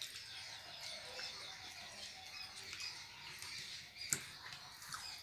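Faint eating sounds of people eating rice with their fingers: chewing, wet lip smacks and small mouth clicks and squeaks, with one sharper click about four seconds in.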